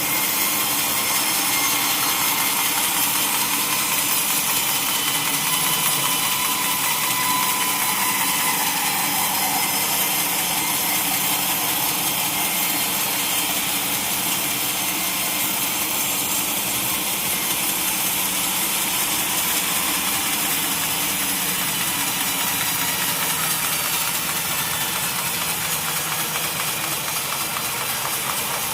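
Sawmill saw machinery running steadily, a continuous mechanical whir with no breaks.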